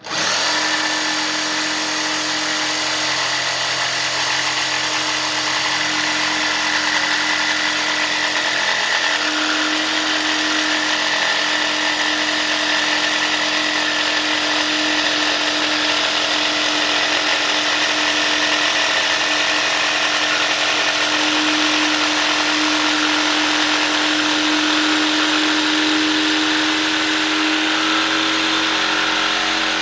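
Power saw switched on and running continuously, starting abruptly with a steady hum and hiss that dips slightly in pitch now and then as it cuts.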